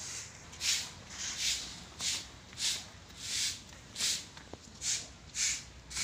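Regular scuffing footsteps on brick paving, about three every two seconds, each a short hissy scrape.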